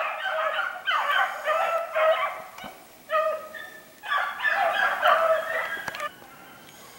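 A pack of hounds baying as they run a hare's track, several voices overlapping in bursts, dropping away about six seconds in.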